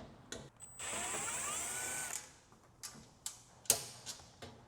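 Power drill-driver with a Torx bit running for about a second and a half, its motor whine rising in pitch as it backs a screw out of the washer's sheet-metal back. It is followed by a few sharp clicks and knocks of metal parts being handled, the loudest a little before the end.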